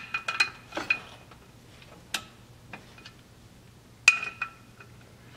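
Sharp metallic clicks and clinks as a socket wrench is fitted to the clutch pressure plate bolts and pulled to check their torque. Several come close together at the start, and the loudest comes about four seconds in.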